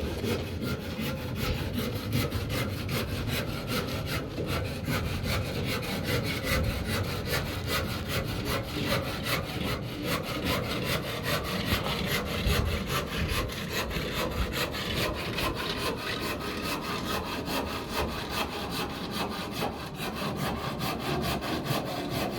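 Hand saw cutting through wood, with steady back-and-forth strokes that run on without a break.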